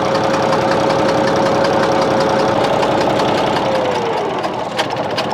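A-01 six-cylinder tractor diesel running steadily with a regular knock, then shut off about four seconds in, its speed falling away, with a couple of sharp clicks as it stops. The owner calls the sound at shutdown strange and says it shouldn't be there, and he ties the abnormal noise to the third cylinder.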